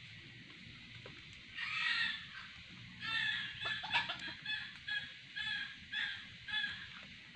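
Red junglefowl rooster calling: one longer call about a second and a half in, then a run of short clucking notes, roughly two a second, that stops shortly before the end.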